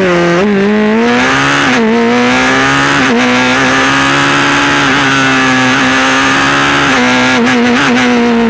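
Norma M20 evo CN sports-prototype's 2-litre Honda four-cylinder engine heard onboard under full throttle. The note dips at the start, climbs steadily through the revs, then holds high, with a couple of brief dips near the end.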